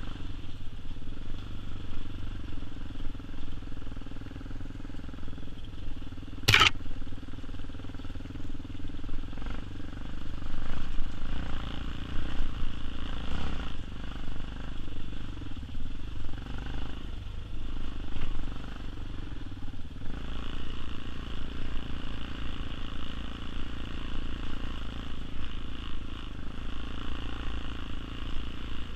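Tao Tao TBR7 single-cylinder dirt bike engine running steadily as it is ridden along a rough trail, with one sharp knock about six and a half seconds in.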